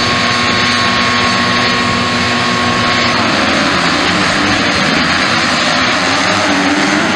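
A field of 250cc MX2 motocross bikes held at high revs at the starting gate, giving a steady chorus of engine notes. About three seconds in they launch together, and the even notes give way to a rougher, mixed engine sound as the pack accelerates away.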